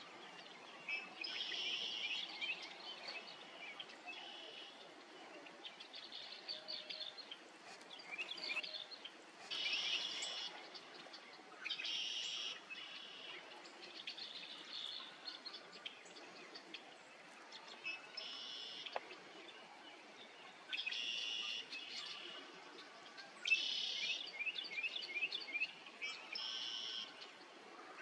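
Wild birds singing short, bright phrases, one every two to three seconds, over a faint steady outdoor hiss.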